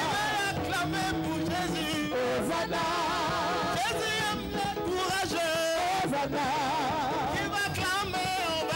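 Live church worship music: a band playing with a lead voice singing over it, the melody wavering in a wide vibrato.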